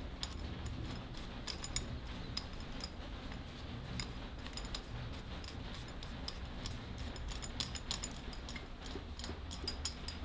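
Light, irregular clicks and ticks from the metal rotary egg beater being handled while a cloth pad is rubbed over its wooden handle, over a low steady hum.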